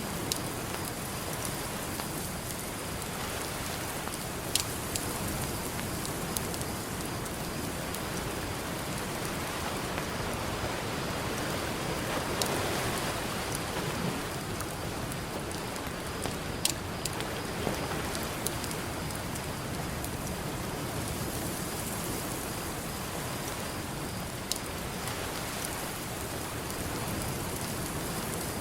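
Campfire crackling, with sharp pops every few seconds over a steady wash of ocean surf. The wash swells briefly about twelve seconds in.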